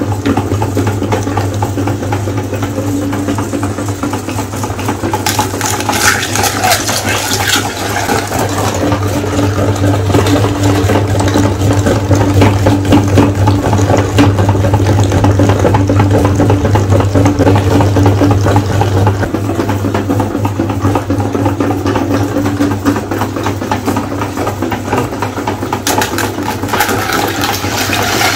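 Meat grinder running with a steady motor hum as colored eggs are crushed by the auger and squeezed wet through the cutting plate. Bursts of crackling from the shells breaking come about a fifth of the way in and again near the end.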